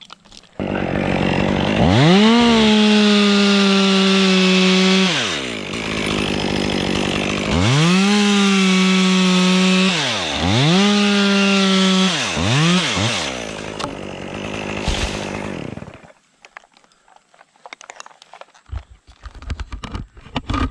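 Two-stroke chainsaw cutting wood: three bursts at full throttle, each holding a steady high pitch, with the engine dropping back to idle between them. About thirteen seconds in it falls away, and shortly after the sound stops.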